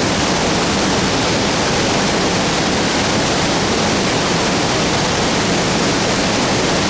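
Waterfall: falling water rushing in a loud, steady, unbroken wash of noise.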